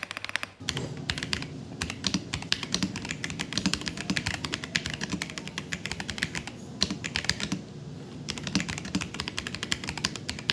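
Typing on a Royal Kludge RK R75 mechanical keyboard with brown switches and a gasket-mounted, foam-layered build: rapid, continuous keystroke clacking with a few brief pauses.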